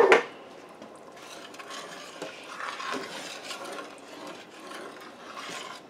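A metal spoon stirring a chili of ground beef and crushed tomatoes in a stainless steel stockpot: a sharp knock at the very start, then continuous soft scraping and rubbing of the spoon against the pot.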